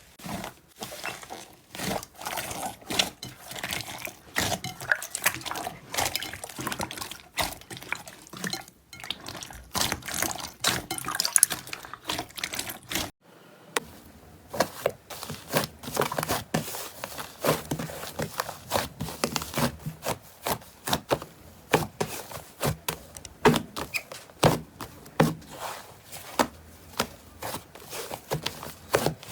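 Slime being squeezed and worked by hand close to the microphone: a dense, irregular run of wet clicks and pops, with a short break about 13 seconds in.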